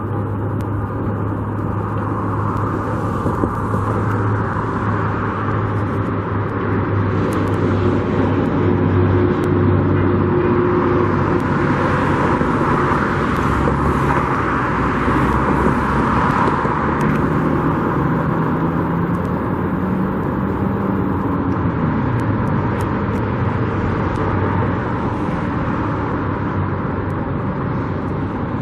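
Steady road traffic with engine hum, swelling as vehicles pass about halfway through; one engine note slides down in pitch near the end.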